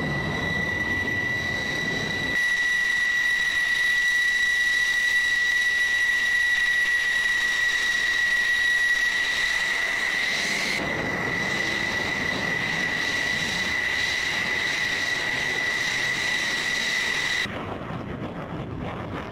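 F-16 fighter jet engines running at taxi power: a steady high-pitched whine over a low rumble. About 17 seconds in the whine stops and a quieter rough jet noise is left.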